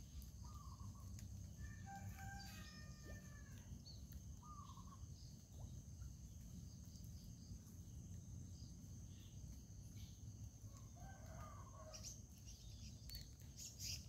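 Rooster crowing faintly, about two seconds in and again near the end, with a few scattered bird calls between, over a low outdoor background and a thin steady high tone.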